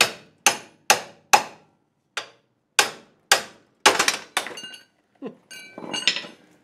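Hammer blows on steel, about two a second, struck to separate a stuck, crusty ball joint from the suspension. Near the end come ringing metal clinks and a rattle.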